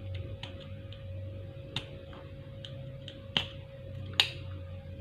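Flat-head screwdriver tip scraping and picking at a dead surface-mount LED on a bulb's LED board, giving scattered small clicks and scratches with a few sharper ticks. The dead LED is being scraped off.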